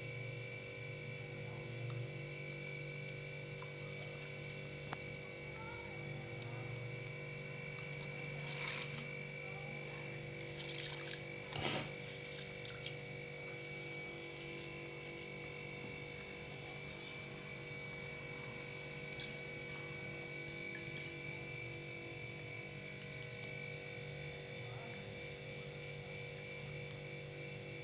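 Steady electrical hum with several fixed tones, and a few short, sharp handling noises about nine to thirteen seconds in.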